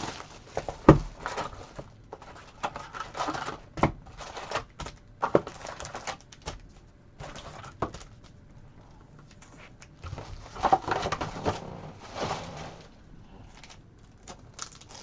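A box of sports-card packs being opened and handled: scattered taps and clicks of cardboard, with bursts of paper and plastic rustling.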